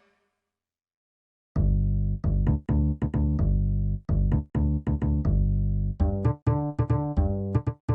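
Silence for about a second and a half, then a synthesizer keyboard plays short, separate chords over a deep bass. The chords come faster about six seconds in. It is an instrument demo for sound-system testing.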